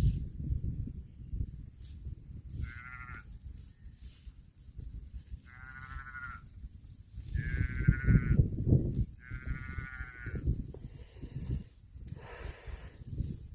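Four short, high-pitched bleating calls from a young farm animal, each about a second long, over a steady low rumbling noise.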